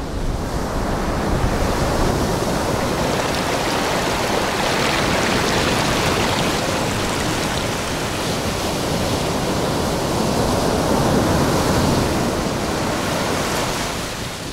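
Surf from a rough, stormy sea washing up over sand at the water's edge: a steady rushing of breaking waves and foam that swells and eases as each wave comes in.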